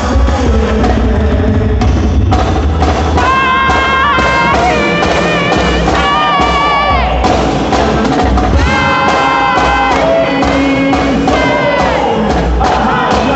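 Loud forró-style festa junina dance music: a steady drum beat under long, slightly wavering held melody notes.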